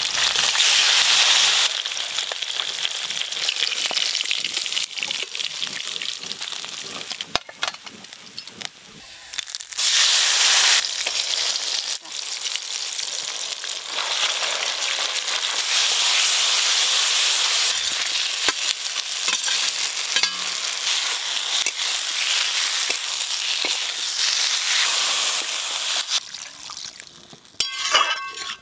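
Oil sizzling in a wide metal wok, first as rohu fish steaks fry and then as a spice paste with tomatoes fries under a metal spatula being stirred. The sizzle swells and fades in several stretches, with a few metal clinks near the end.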